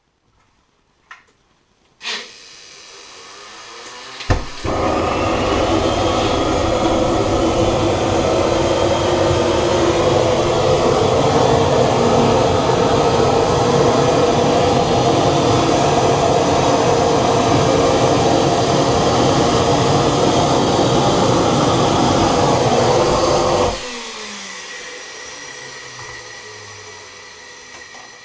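Home-built 3D-printed jet engine, with a printed PLA compressor, a cast cement turbine end and a stainless steel turbine wheel, started up. A rising whine as it spins up, a sharp pop about four seconds in as it lights, then a loud, steady run for about twenty seconds. It cuts off abruptly and spools down with a falling whine.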